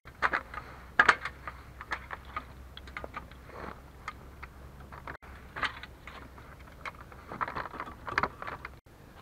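Irregular clicks, knocks and light rattles from a metal ladder deer stand and gear as a man handles its seat and frame while standing on it.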